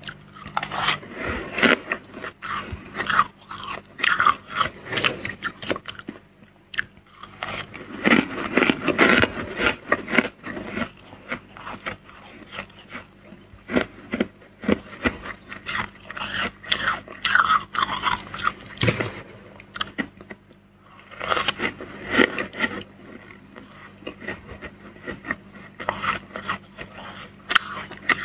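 Freezer frost crunching as it is scraped with a spoon and eaten: irregular clusters of sharp, gritty crunches, with brief lulls about six and twenty seconds in.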